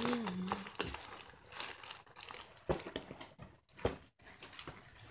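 Thin plastic shopping bag rustling and crinkling as a cat pokes about in it, with a couple of sharper knocks around the middle.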